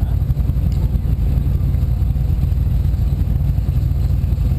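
Powerboat engine running at slow, idle-speed cruising: a steady low rumble.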